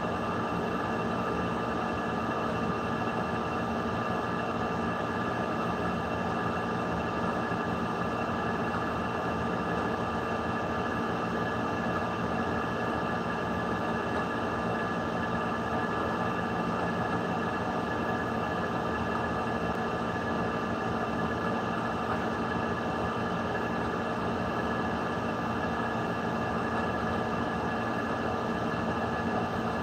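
A steady machine hum with several constant tones, unchanging and without breaks.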